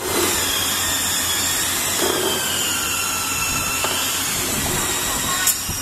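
Automatic capacitor assembly machine running: a steady mechanical whir and hiss with faint steady tones over a low hum, and one sharp click near the end.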